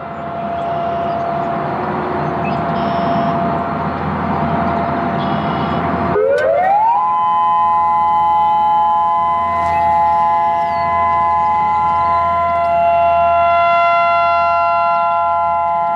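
Federal Signal EOWS 612 electronic siren's drivers sounding a loud hiss for about six seconds, then gliding quickly up in pitch into a steady, sustained chord of several tones: a steady alert tone.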